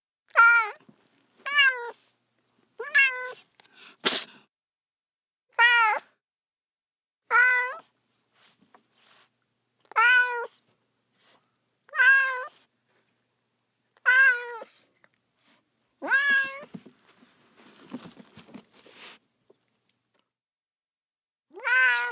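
A cat meowing over and over: about ten short meows, each rising then falling in pitch, coming every second or two with a pause of a few seconds near the end. A single sharp click sounds about four seconds in.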